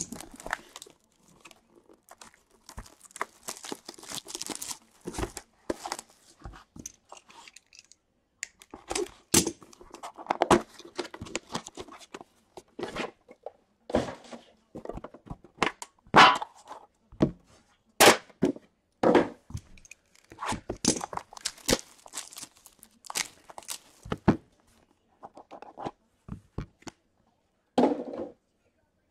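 Sealed hockey-card box being unwrapped and opened: plastic wrap and cardboard torn and crinkled, then a metal tin handled and its lid lifted, with irregular sharp knocks and thuds, the loudest a little past the middle.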